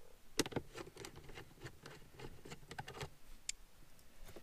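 Hand screwdriver backing a Phillips screw out of plastic centre-console trim: a run of small, irregular clicks and ticks.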